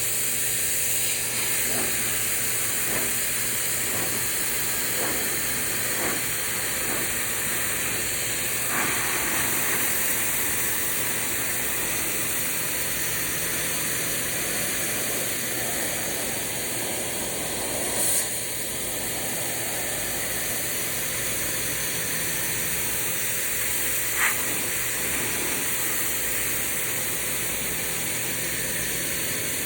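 Kranzle K1122TST electric pressure washer spraying a steady high-pressure water jet against a fence, a continuous hiss over the steady hum of its pump. The spray briefly gets louder about 18 seconds in.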